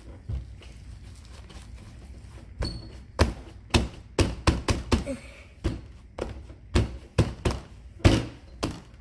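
Shaving-cream foam slime being squeezed and bunched up by hand: from about two and a half seconds in, a quick, irregular run of sharp squishy pops and thuds.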